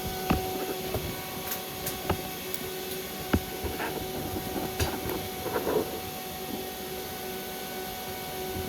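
Steady electrical hum from the idling stick welder, with scattered sharp clicks and knocks of metal being handled, a short flurry of them about five seconds in.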